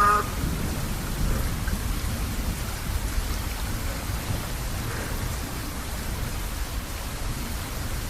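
Steady rain falling, with a low rumble underneath. At the very start, the last held note of the sung azan cuts off.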